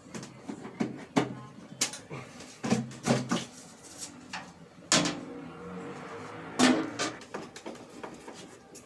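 Irregular knocks, clicks and clatter of hard objects being handled, with a louder knock about five seconds in and another a second and a half later.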